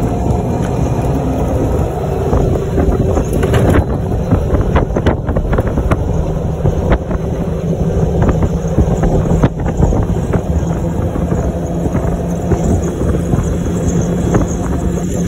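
48-volt electric Club Car golf cart driving at speed: wind buffeting the microphone and the tyres rumbling on the road, with a steady low motor hum from about six seconds in and a few sharp knocks over bumps.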